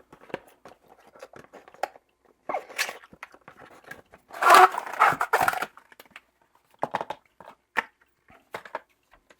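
A small cardboard product box being handled and opened: irregular rustling, scraping and clicks of packaging, with a louder stretch of rustling about four and a half seconds in that lasts about a second.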